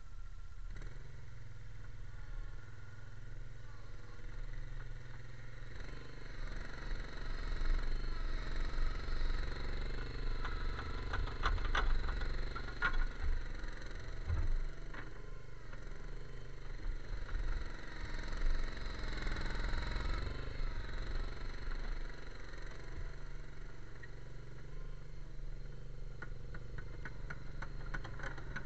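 Avant 218 compact loader's engine running under load as the machine drives up and works its bucket into a dirt pile. It gets louder through the middle, with scattered knocks and scrapes there.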